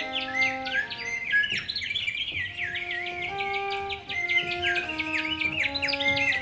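Hand-held bird whistles chirping and warbling in imitation of birdsong, over steady held notes from a small pipe organ that move from chord to chord.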